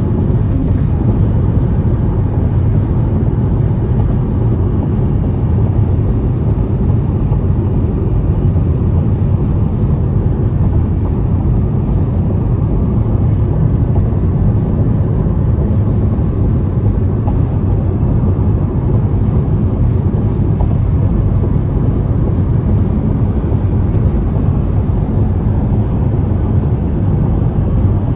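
Steady low rumble of a car driving at speed: tyre and road noise heard from inside the cabin.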